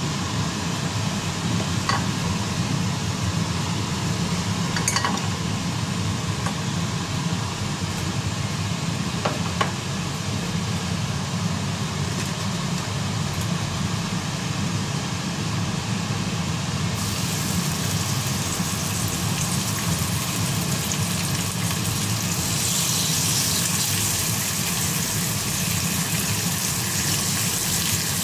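Sizzling of oil in a frying pan over a steady low hum, the hiss growing brighter and louder in the last several seconds as thin slices of seasoned beef go into the hot oil.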